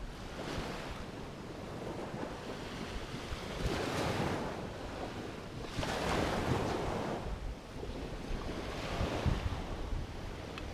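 Waves washing onto the shore in slow swells every few seconds, with wind buffeting the microphone.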